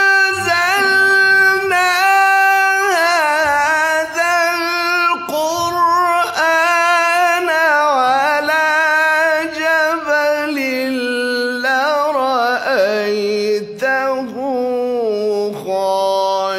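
A man's voice in melodic Quran recitation (tilawah), holding long notes with quick ornamented turns, dropping to a lower register near the end.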